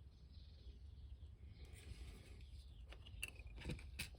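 Near silence: a steady low room hum with a few faint light clicks near the end.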